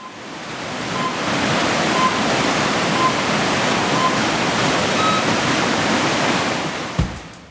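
Rushing whitewater, a steady roar that swells in at the start and eases near the end. Over it sound electronic countdown beeps, one a second: five at one pitch, then a sixth slightly higher, like a race start countdown.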